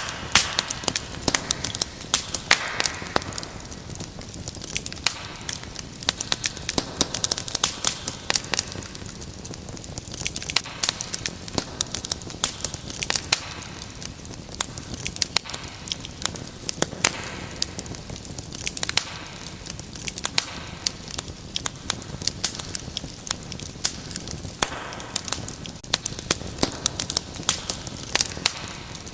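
Wood fire crackling in a fireplace: dense, irregular pops and snaps over a soft steady hiss of flame.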